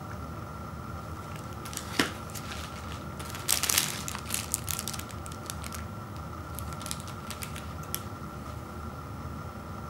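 Empty plastic outer wrapper of a candy-bar multipack crinkling as it is handled and laid down, loudest in a short burst about three and a half seconds in, then a few lighter rustles. A single sharp tap comes about two seconds in.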